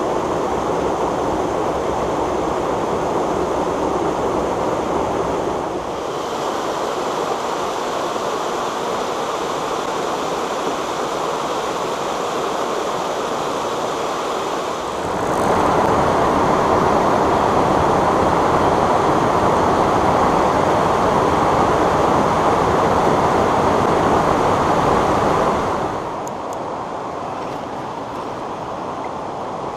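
Steady rush of water from small waterfalls and cascades on a mountain stream. The level shifts in steps, loudest for about ten seconds in the middle and softer near the end.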